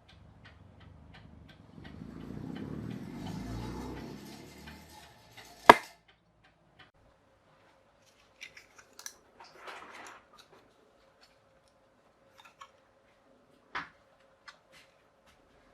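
Wind-up mechanical clock, partly rebuilt with 3D-printed parts, ticking at about three ticks a second. A low rumble of handling noise runs through the middle, and one sharp, loud click about six seconds in is the loudest sound, followed by a few scattered clicks and a faint steady hum.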